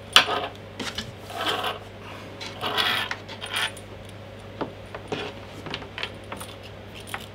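Desoldering gun's stiff cable and metal plug being handled: light metallic clinks and rattling rustles, then a string of separate sharp clicks about half a second apart.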